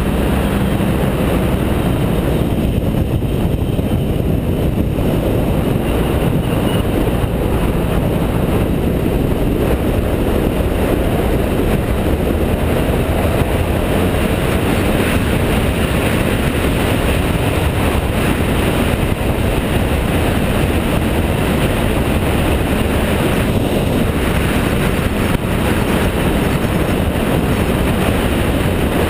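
BMW F650GS motorcycle cruising at steady road speed: a constant rush of wind over the camera's microphone and road noise, with the engine running evenly underneath.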